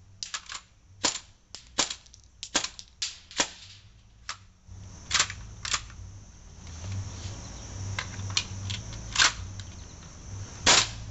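A CO2-powered, shell-ejecting airsoft pump shotgun (Maruzen M1100 internals in a Tokyo Marui SPAS-12 body) being fired and pumped. It makes a string of sharp pops and plastic clacks, closely spaced for the first four seconds or so, then fewer and further apart, with a loud one near the end.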